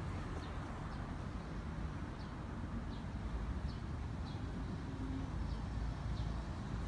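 Outdoor background noise: a steady low rumble with faint, short, high ticks or chirps every half second to a second.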